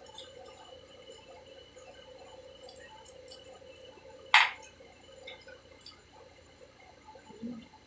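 Quiet eating and drinking sounds at a table: scattered small clicks and ticks, with one sharp clack a little past halfway and a soft knock near the end.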